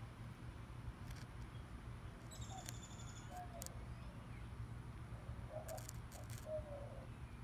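A steady low hum with a few faint, short, low bird calls through the middle and latter part, a brief high chirp a little over two seconds in, and some light ticks.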